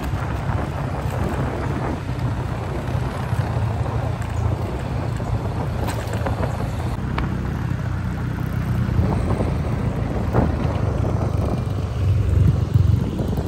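Motorcycle engine running steadily while riding, with wind rumbling on the microphone and a few light clicks or rattles.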